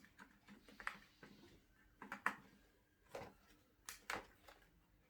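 Scattered sharp clicks and taps of plastic parts being handled and fitted together, about six in all, with quiet between them.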